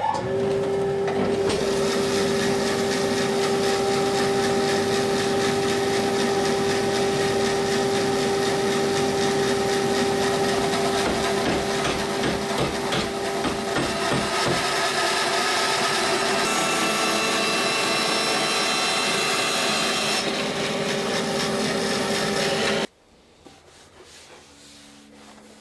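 Bandsaw running and cutting along the top edge of a wooden centreplate case side: a steady motor hum under the noise of the blade in the wood. It stops abruptly near the end.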